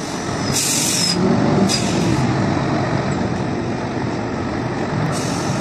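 Heavy diesel truck engine running steadily, with short bursts of air hissing from the truck's air system: one about half a second in, a shorter one near two seconds, and another starting near the end.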